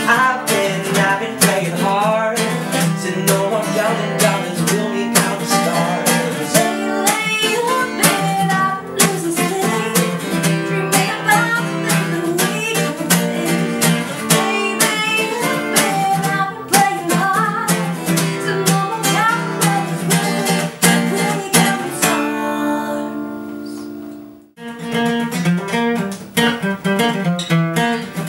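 Acoustic guitar strumming chords under a wavering lead melody. About 22 seconds in the song closes on a held chord that fades out, and after a brief gap strumming starts again on the next song.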